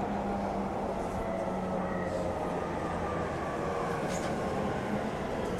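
Running sound inside the E231-900 series commuter car MoHa E231-901, which has a Hitachi IGBT VVVF inverter: a steady rumble from the wheels and running gear. Under it are faint motor tones that slowly drift lower in pitch.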